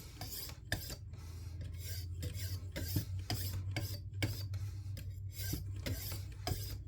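600-grit sharpening stone on a guided rod sharpener rasping along the edge of a 52100 steel kitchen knife in short strokes, about two a second, to knock off the burr. A steady low hum runs underneath.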